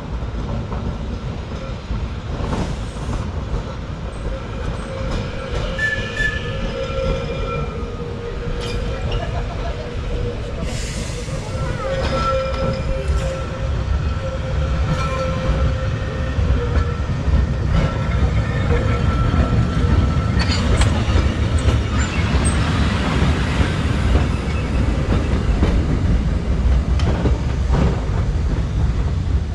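Manx Electric Railway electric tram arriving along the track: a steady rumble with clacks over the rail joints and a few drawn-out tones over it, growing louder as the tram draws near and passes, loudest about two-thirds of the way through.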